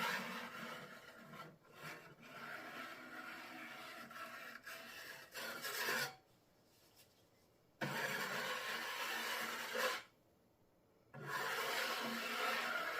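A tool scraping and rubbing through thin, hand-mixed Henry Feather Finish cement slurry, in three spells broken by two sudden short silences.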